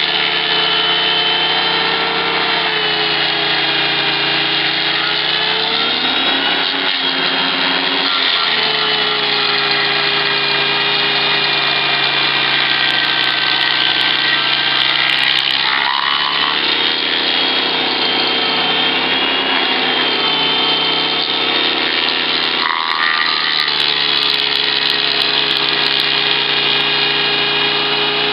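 Engine of a tree-shredding forestry machine running hard and continuously, its pitch sagging and recovering a few times.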